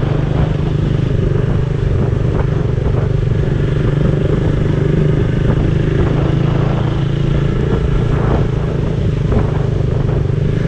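Motor scooter engine running at a steady cruising speed, heard from the rider's seat over road and tyre noise, with a few faint knocks from bumps in the concrete road.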